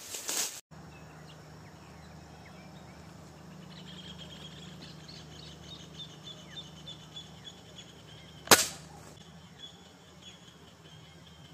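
A single sharp gunshot about 8.5 seconds in, the shot that brings down the game at the bait site. Under it a high, pulsing chirping runs in the background, and there is a brief noise at the very start.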